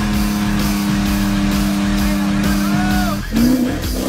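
Background music over a vehicle engine running. About three seconds in, the sound breaks off briefly and an engine revs up in rising glides.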